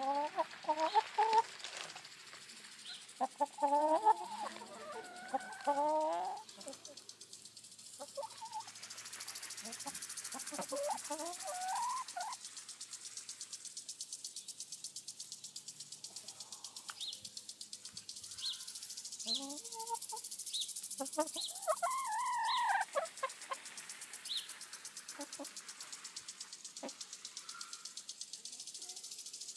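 A flock of hens clucking and murmuring in several bursts of short, rising and falling calls, with quieter stretches between.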